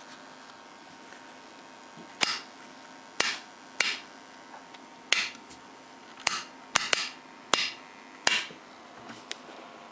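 Battery charger's mains transformer humming faintly and steadily under load, a sign of its loose, unimpregnated windings, which the repairer judges normal and harmless. Sharp clicks sound about nine times at uneven intervals over it.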